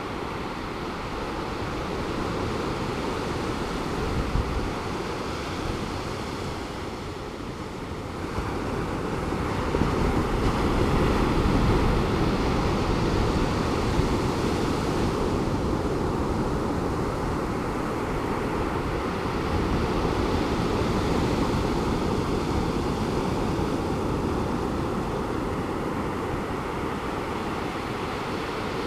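Pacific Ocean surf breaking on a beach at a distance, a steady wash that swells as a wave comes in about a third of the way through and again past the middle.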